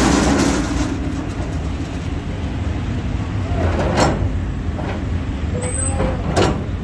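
Busy street ambience: a steady low rumble of motor traffic, broken by sharp knocks at the start, about four seconds in and just after six seconds.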